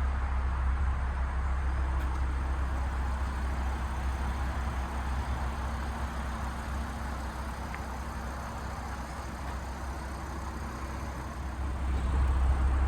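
Audi RS3 8P on the move: a steady low engine and road rumble, easing off a little through the middle and building again near the end.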